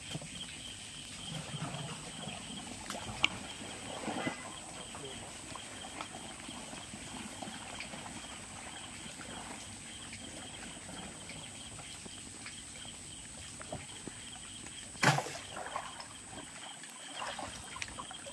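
Pond water sloshing and splashing as a man wades with a plastic drum of live catla and tips it to release the fish into the pond. One loud sharp splash or knock about fifteen seconds in, over a steady thin high-pitched whine.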